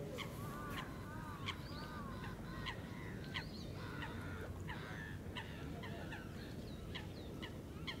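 Many birds calling at once: a quick, overlapping string of short harsh calls, some rising and falling in pitch, over a steady low background rumble.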